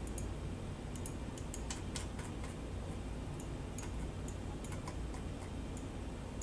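Light, irregular clicks of a computer mouse and keyboard as charts are switched on screen, over a steady low hum.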